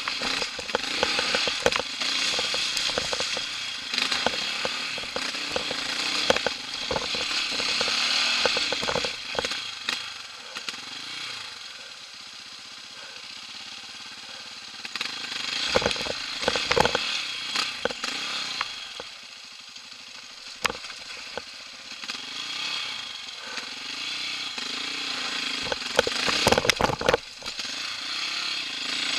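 Quad bike (ATV) engine running with a buzzy note that rises and falls with the throttle, easing off twice for a few seconds, while the quad crawls over a rocky track. Sharp knocks and rattles from the machine jolting over the stones come in clusters, loudest about midway and again near the end.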